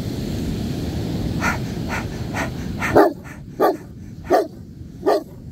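Young black Newfoundland barking repeatedly at its owner, the attention-seeking kind called demand barking. Faint barks sound over wind and surf noise at first, then from about three seconds in come four loud, sharp barks at a quick, even pace.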